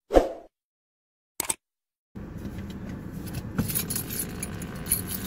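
Two brief sounds over silence, then from about two seconds in the steady hum of a car interior, with small clicks and jingles like keys being handled in the driver's seat.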